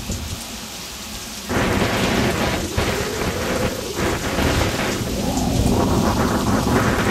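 Thunder cracking about a second and a half in and rumbling on loudly, over steady rain. It follows a lightning flash closely, so the strike is near.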